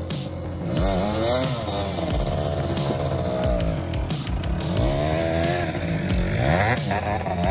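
Kawasaki dirt bike engine revving up and down several times, its rear wheel spinning in snow while it pulls a loaded kayak on a tow strap.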